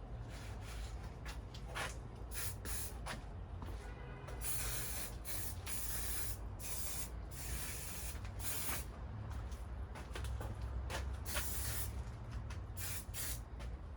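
Aerosol can of Maxima SC1 high gloss silicone coating spraying in a series of hissing bursts: short squirts at first, longer sprays a few seconds in, then more short squirts near the end, over a steady low hum.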